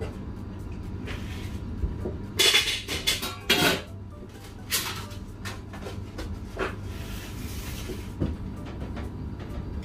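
Metal pans, utensils and takeaway containers clattering and knocking on a stainless-steel kitchen counter as food is plated. There is a quick run of clatters a few seconds in and single knocks after it, over a steady low hum.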